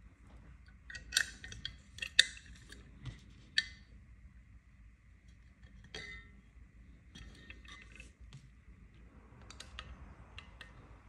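Small parts of a Steambow AR-6 Stinger II metal crossbow magazine clicking and clinking as they are handled and fitted together by hand: a few sharp clicks in the first four seconds, one more about six seconds in, then lighter ticking.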